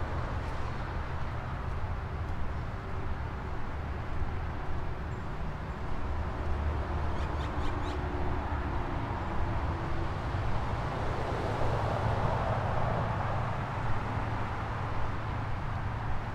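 Steady city ambience: a low, continuous traffic hum, with a few faint high chirps about seven seconds in.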